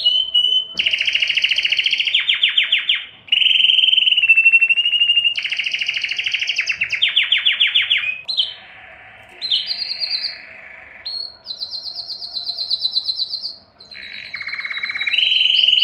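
Male canary in breeding condition singing a continuous song of rapid trills: each phrase is a fast run of one repeated note held for a second or two, then switching to a new pitch or note type, with brief gaps between phrases.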